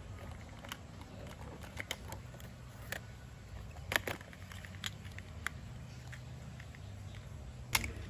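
Small plastic clicks and taps as a mini glass perfume spray bottle in a clear plastic tube is lifted off a pegboard hook and handled. A sharper click comes about four seconds in and another near the end, over a faint low hum.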